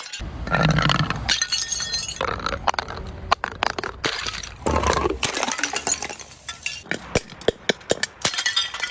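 Glass bottles shattering: several loud crashes one after another, then many quick sharp clinks of breaking and falling glass in the last couple of seconds.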